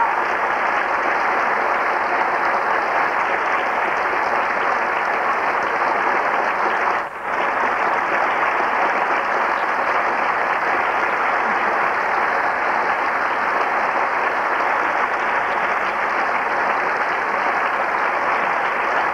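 Theatre audience applauding steadily, with a brief dip about seven seconds in.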